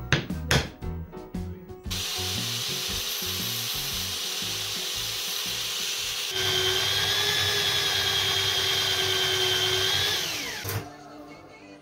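Cordless drill running steadily with a dowel spinning in its chuck and a wooden stick rubbing against it. About halfway through it gets louder with a steady whine, and the motor winds down near the end.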